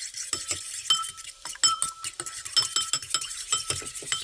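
Eggs being beaten in a bowl with a metal utensil: rapid, irregular clinks, each ringing briefly.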